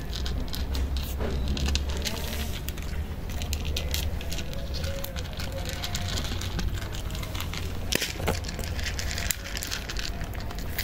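Cats crunching dry kibble from plates: a run of irregular crisp clicks, over a steady low rumble.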